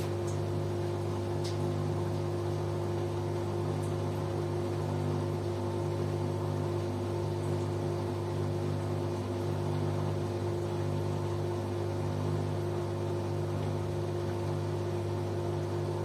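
LG Direct Drive front-loading washing machine tumbling a wet load during a quick wash: a steady motor hum with several steady tones, one lower tone dropping out briefly every few seconds.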